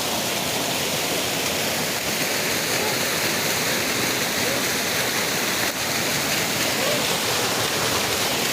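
Waterfall: water pouring and splashing onto rocks in a steady, loud rush.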